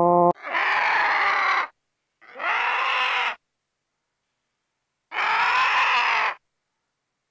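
Griffon vulture giving three harsh, rasping hissing calls, each a little over a second long, with silence between them. A steady pitched call cuts off just before the first one.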